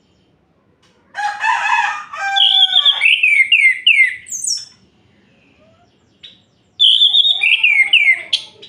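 Orange-headed thrush singing: two loud phrases of rich whistled notes, each ending in a run of quick falling slurs. The first starts about a second in and lasts over three seconds; the second comes near the end.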